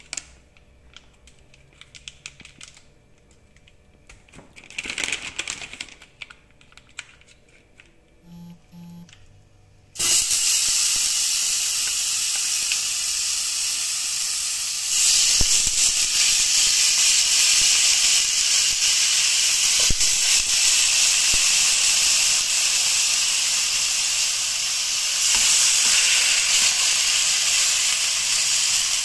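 A plastic vacuum bag crinkles a few times and two short beeps sound. Then, about ten seconds in, marinated rabbit pieces hit a hot non-stick pan and start sizzling loudly, the sizzle stepping up in loudness as more pieces go in.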